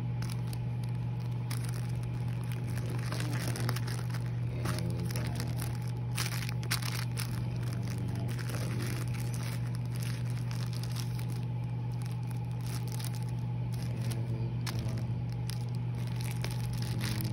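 Tissue paper and a clear plastic wrapper rustling and crinkling in irregular bursts as they are handled and unwrapped, over a steady low hum.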